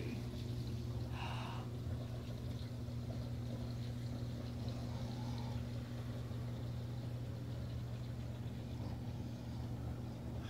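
Steady low electric hum of saltwater aquarium equipment, the pumps feeding the sump and protein skimmer, with faint running water beneath it.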